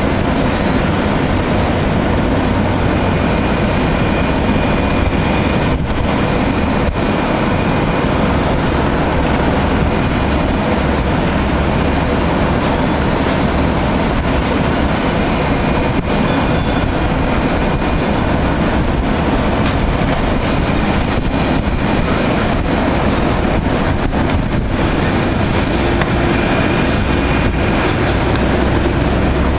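Jet engines of an Embraer 190 airliner (GE CF34-10E turbofans) making a steady, loud rushing noise as the aircraft lands and rolls out on the runway.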